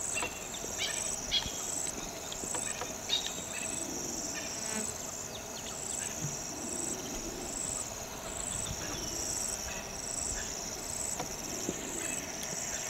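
Chorus of crickets or similar night insects trilling high and steadily, swelling about once a second. A leopard lapping water adds soft wet clicks and splashes, mostly in the first few seconds.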